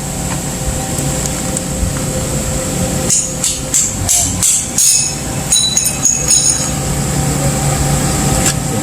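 Refrigeration condensing unit running steadily: the hermetic compressor and condenser fan hum with a steady tone. The compressor, which would only hum and fail to start before, is now running with a 3-in-1 hard-start relay/overload/capacitor kit fitted. Several clicks and knocks come in the middle, and a brief high-pitched chirp sounds about six seconds in.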